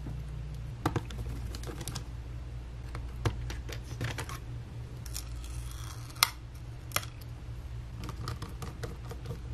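Scattered light clicks and taps of a small screwdriver and fingertips working on a MacBook Pro's logic board screws and connectors, over a low steady hum. A short scraping rustle comes about five seconds in, followed by two sharper clicks.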